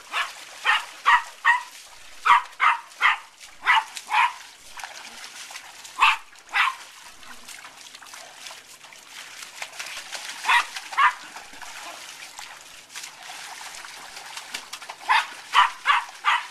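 Small terrier barking in quick runs of two to four short, high barks with pauses between them, most in the first four seconds and again near the end. Water splashes in a paddling pool under the barks as hands sweep through it.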